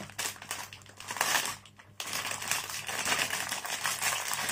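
Clear plastic packaging crinkling as it is handled and opened, in uneven spells with a short lull a little before two seconds in.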